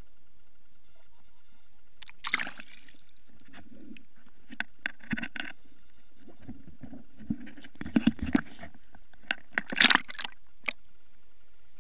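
Seawater sloshing and splashing around a camera as it is dipped in and out of the water beside a kayak. It comes in irregular bursts with sharp knocks, loudest near the end, over a faint steady hiss.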